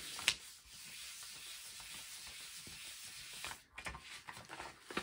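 A hand rubbing over a sheet of paper laid on a gel printing plate, a steady swishing rub that eases about three and a half seconds in, then lighter rustling. The paper is being pressed down to lift the leftover paint as a print.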